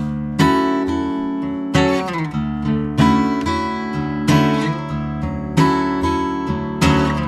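Background music: acoustic guitar strummed in a steady rhythm, with sliding notes between chords.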